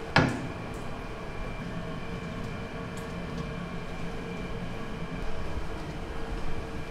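Steady drone of food-factory machinery with a steady whine in it, and one sharp knock just after the start.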